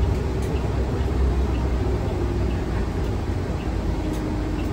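Interior drive noise of a moving New Flyer Xcelsior XN35 bus: its Cummins Westport L9N natural-gas engine and the road make a steady low rumble, with a faint hum above it.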